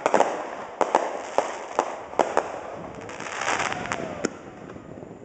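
Aerial fireworks bursting: a quick, irregular series of sharp bangs, about ten of them, thinning out after about four seconds.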